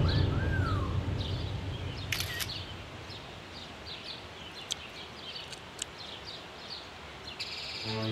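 Small birds chirping over and over in outdoor ambience, while a low drum-heavy music cue fades out over the first second or two. A brief rushing noise comes about two seconds in.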